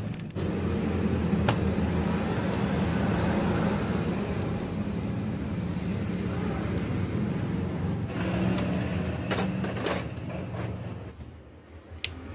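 Steady low hum with a few light clicks and plastic rattles as a wiring connector is handled inside a Canon imageRUNNER copier. Near the end the hum drops away, and the copier's main power rocker switch gives one sharp click.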